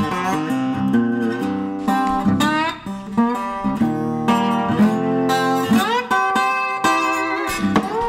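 Acoustic guitar music: plucked notes ringing over steady low bass notes, with a couple of notes sliding up in pitch.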